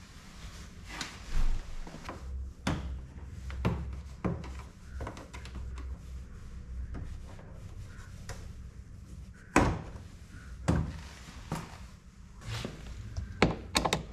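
Plastic interior door trim being prised and handled: irregular clicks and knocks, the loudest about nine and a half seconds in.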